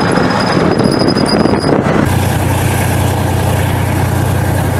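Military tank's engine running as it moves over dirt: a loud, steady noise, with a steady low drone coming in about two seconds in.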